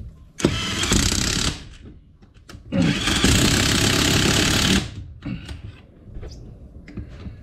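Power impact wrench running bolts in, in two bursts of about one and two seconds, with light clinks of parts and tool between them.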